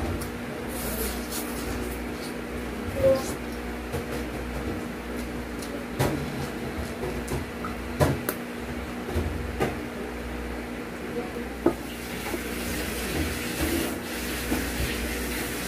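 Close-up eating sounds: noodles slurped and chewed, with a few sharp clicks of wooden chopsticks against the plate, over a steady low hum.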